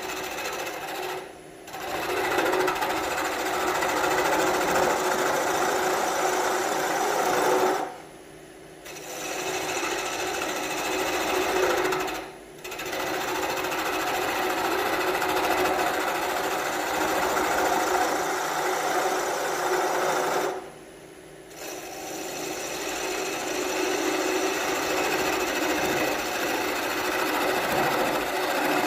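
Skew chisel cutting a spinning off-center Nargusta wood scoop blank on a wood lathe: a steady rapid cutting sound from an interrupted cut, the tool meeting the off-balance bowl each turn. It breaks off briefly four times as the cut stops, leaving the lathe running.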